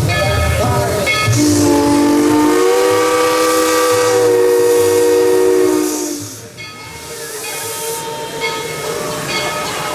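Steam locomotive's chime whistle blowing one long blast of about five seconds, several notes sounding together as a chord, over the hiss of steam as the train pulls out.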